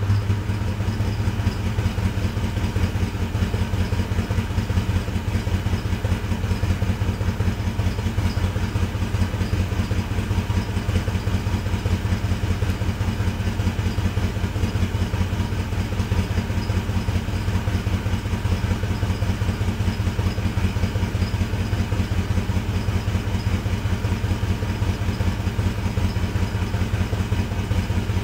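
1985 Ford Mustang GT's 5.0-litre V8 idling steadily through its stock exhaust during warm-up from a cold start after two months of standing, a slow, even rumble.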